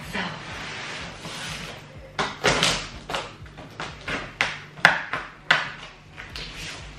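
A large cardboard box being opened: hands shifting the box, then a run of about eight sharp scraping, ripping strokes over some three seconds as the packing tape is cut and torn.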